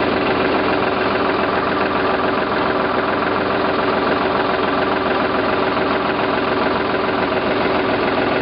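Tractor engine running at a steady idle, driving a tractor-operated boom sprayer, with an even drone that does not change.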